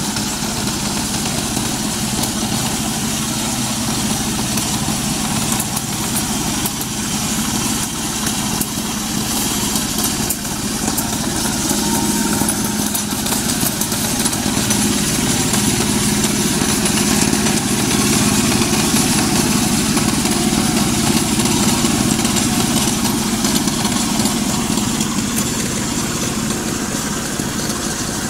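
Two-wheel hand tractor's engine running steadily while it ploughs a flooded rice paddy, a continuous unbroken drone.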